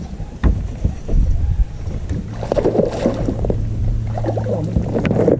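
Knocks and low rumble aboard a small fishing boat on the water, with a steady low hum in the second half and a few sharp clicks near the end.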